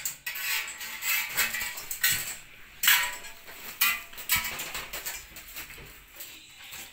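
Irregular light clicks and clatter of electrical wires being handled, pulled and fed through the ceiling, with a couple of sharper knocks about three and four seconds in.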